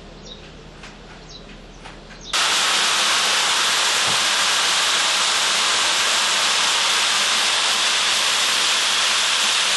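Faint background with a few soft clicks, then a loud, steady rushing hiss that comes in suddenly about two seconds in and keeps on without change.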